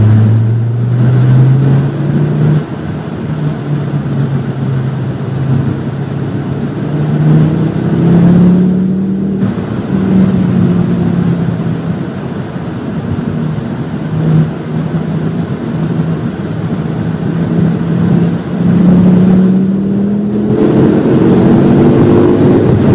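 A Volvo V50 T5's turbocharged 2.5-litre five-cylinder engine pulling hard on track. Its pitch rises and falls with the throttle, eases back briefly twice, and climbs steadily near the end as the car accelerates onto a straight.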